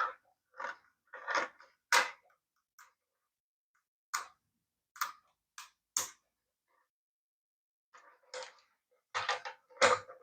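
Irregular clicks, taps and short scrapes of small tools on plastic parts as a compact digital camera is taken apart, bunched at the start and again near the end.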